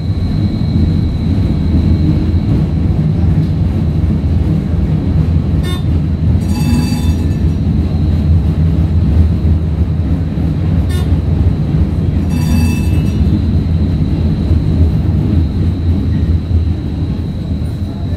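DC streetcar running along its track, heard from inside the car: a steady low rumble with a thin high whine. Two short ringing sounds come about six seconds apart in the middle, with a couple of sharp clicks. The rumble eases near the end.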